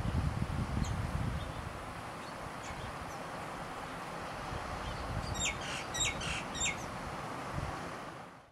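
A bird chirping over a steady background hiss: a few faint high chirps, then about five seconds in a quick run of four short, falling chirps.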